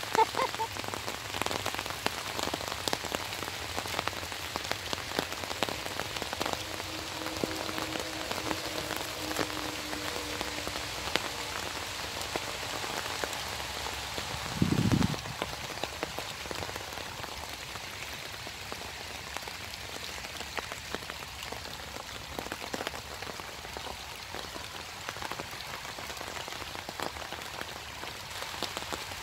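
Steady light rain pattering, with many small drop ticks. A brief low thump about halfway through is the loudest moment.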